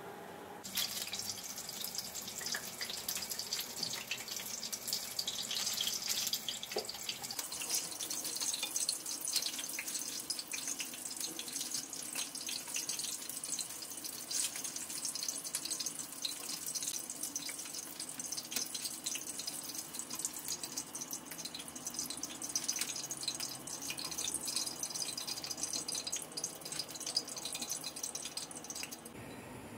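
Hot oil sizzling and crackling in a frying pan as sundae (Korean blood sausage) and battered pieces shallow-fry. The sizzle starts about half a second in.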